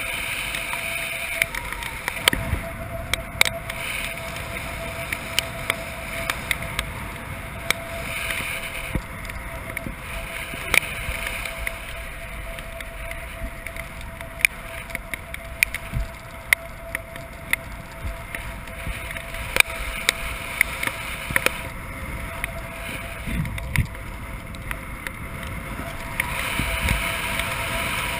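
Airflow rushing over a skydiver's camera during a parachute descent in rain, with many irregular sharp ticks of raindrops striking the camera.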